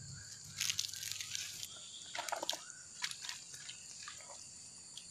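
A steady high-pitched chorus of crickets. Over it, irregular rustles, clicks and light splashes from a freshly caught small fish being handled and put away. The handling noises are loudest in the first couple of seconds and thin out after about four seconds.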